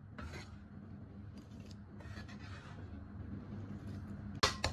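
Raw diced chicken breast being pushed by hand off a wooden cutting board into a glass bowl: soft, faint sliding and rubbing of the wet meat. A short sharp knock about four and a half seconds in.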